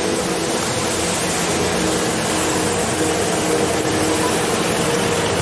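Steady city street traffic noise heard from a moving e-bike, with a few faint steady humming tones running through it.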